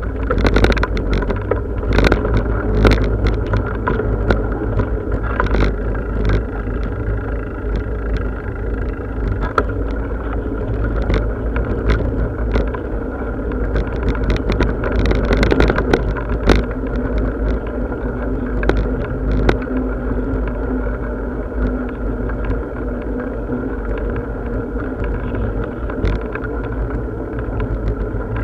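Bicycle riding along a path: a steady low rumble of rolling noise, broken by frequent sharp clicks and rattles from bumps, more of them in the first half.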